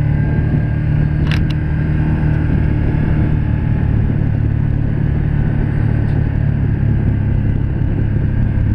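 Can-Am Commander 1000 side-by-side's Rotax V-twin engine running steadily at cruising speed on a paved road, with a quick double click just over a second in.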